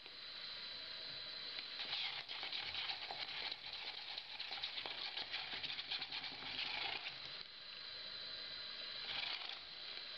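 Plastic cup of fluid geopolymer resin rattling on a running IKA Vibrax VXR vibrating shaker while a spatula stirs and scrapes inside it: a faint, fine patter of small ticks and scrapes.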